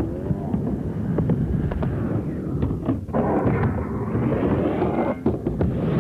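Skateboard wheels rumbling over a ramp, with many sharp knocks and clacks; the rumble breaks off briefly about three seconds in and again about five seconds in.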